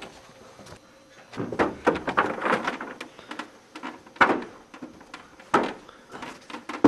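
A door being rattled and thumped: a jolting run of rattles and knocks, then three single thumps about a second and a half apart.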